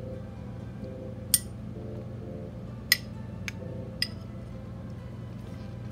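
A metal spoon clinking against a white ceramic bowl four times as dipping sauce is scooped out, sharp short clinks spread over a few seconds, over a faint steady low hum.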